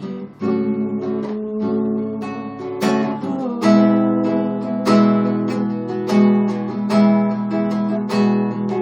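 Acoustic guitar strummed in a steady rhythm, sustained chords ringing between strokes, in an instrumental break of a song.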